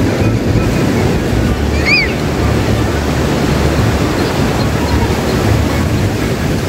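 Ocean surf breaking and washing up a sandy beach: a continuous rush, with wind on the microphone. A short high chirp about two seconds in.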